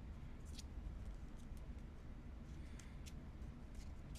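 Trading cards being handled and flipped through by hand: faint, scattered light clicks and rustles, about half a dozen, over a steady low hum.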